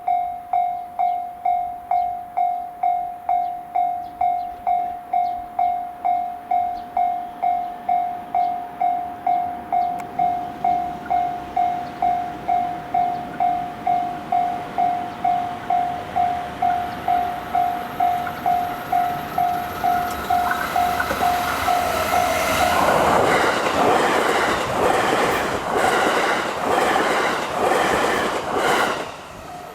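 Level-crossing warning bell dinging steadily on one pitch, a little under two dings a second. About twenty seconds in, a JR Hanwa Line train approaches and passes through at high speed for about seven seconds, its wheels clattering rhythmically over the rail joints, and the noise drops off abruptly as it clears.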